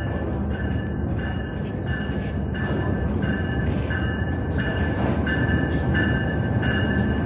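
GE U20C diesel-electric locomotive pulling in slowly, its engine and wheels rumbling and growing louder as it nears. A high-pitched tone pulses on and off about twice a second throughout.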